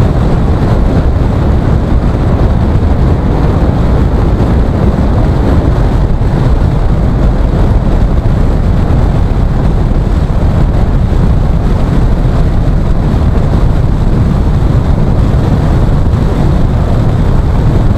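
Steady road noise of a car driving on a wet road, heard from inside the cabin: a constant low rumble of tyres and engine.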